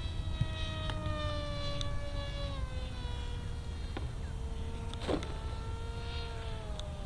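Distant RC plane's motor and propeller buzzing, its pitch sliding slowly down, rising again about five seconds in and falling once more near the end. Wind rumbles on the microphone underneath.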